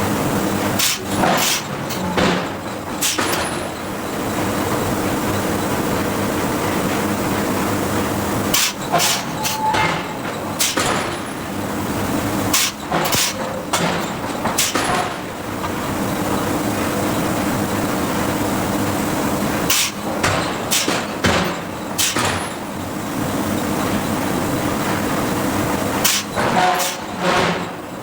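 Hydraulic forging hammer striking steel in bursts of several quick blows, with pauses of a few seconds between bursts, over a steady machinery hum.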